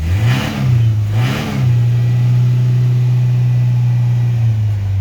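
Ford Ranger 2.3-litre four-cylinder engine, just jump-started after a rough start, blipped twice and then held at a steady raised speed. It eases back down near the end. The owner takes its running as a sign of why the engine needs replacing.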